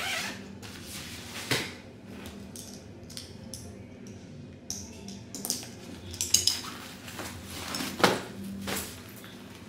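Scattered clinks and knocks of small hard objects being handled and set down, with a sharp knock about a second and a half in, a cluster of clicks past the middle, and the loudest knock near the end.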